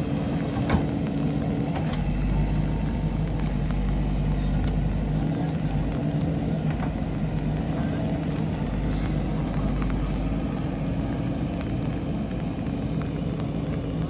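JCB backhoe loader's diesel engine running steadily under digging work, with a low rumble that swells for a few seconds about two seconds in and again around eight seconds in. A few short, sharp clanks sound over it.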